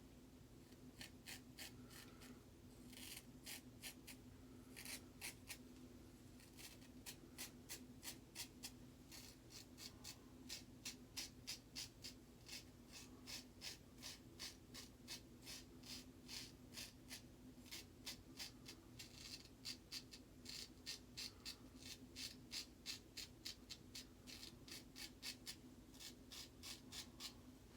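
Autostrop safety razor scraping through lathered stubble in short, quick strokes, two or three a second: touch-up passes over the face.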